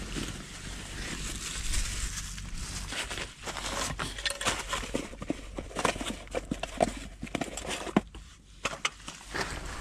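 Handling noises inside a tent: rustling and a run of short clicks and knocks as a backpack is rummaged and a portable cassette gas stove is lifted out of its cardboard box, with the tent fabric flapping in a strong wind.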